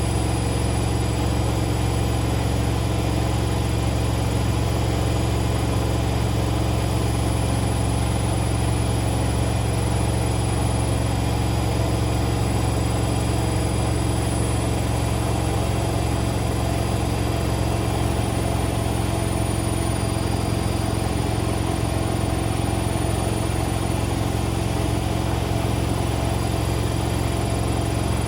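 Indesit Moon SIXL145 washing machine drum spinning steadily at high speed on its final spin, a constant low hum with steady tones over it.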